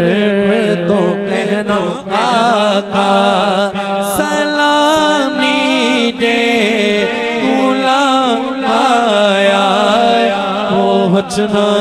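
A man singing an Urdu naat into a microphone, his voice wavering and gliding through long held notes over a steady low drone.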